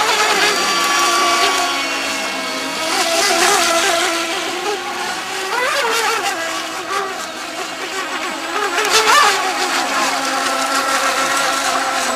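Several electric radio-controlled model racing boats whining as they race, their several motor pitches wavering up and down, with sharp rises in pitch about six and nine seconds in.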